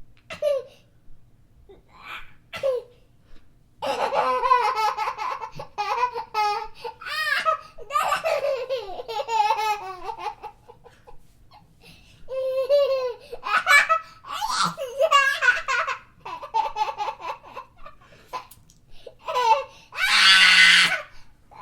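Baby laughing and giggling in bouts of rapid, pitched laugh pulses with short pauses between them, the longest bouts running through the middle, and a louder, noisier burst near the end.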